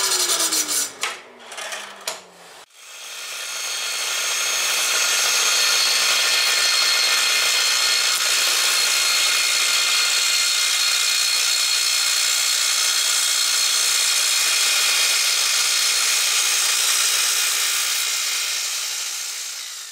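Track saw on its guide rail: the motor winds down in a falling whine over the first two seconds. After a brief lull the saw runs up again and cuts steadily along a walnut slab, with its dust extraction, fading out near the end.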